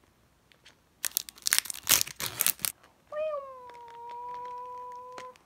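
A trading-card pack's wrapper torn open with a loud crinkling rip lasting under two seconds. It is followed by a long cry held at one pitch for over two seconds, starting a little higher and dropping to a steady note.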